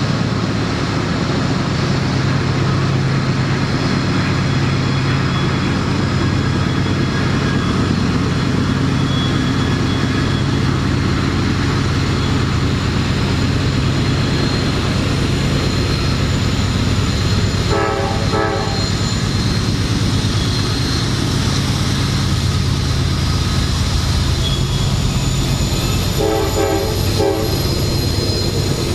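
Norfolk Southern diesel freight locomotives approaching with a steady, heavy engine drone, and two short horn blasts, one about halfway through and a second, slightly longer one near the end.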